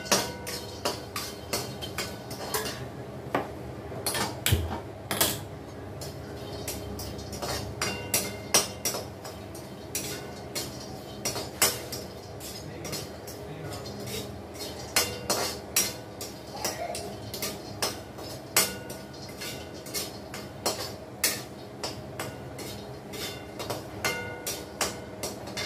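A metal spoon clinking and scraping against a metal pan as cashews and almonds are stirred while being dry-roasted. The short clinks come irregularly, often less than a second apart.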